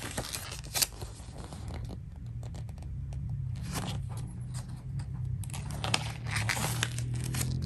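Paper pages of a booklet being turned and handled, rustling several times.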